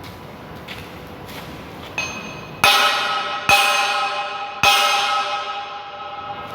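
Metal struck three times in a little under two seconds, each strike ringing on with a clear, bell-like tone that slowly dies away, after a lighter knock just before.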